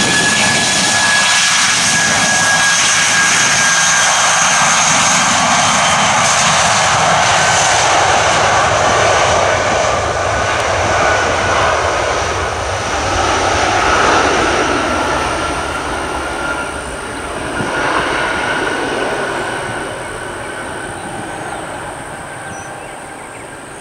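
Airbus A319-132's two IAE V2500 jet engines at takeoff power as the airliner rolls past on its takeoff run and climbs away. It is a loud rumble with a high whine that slides slowly lower, fading over the last several seconds as the jet moves off.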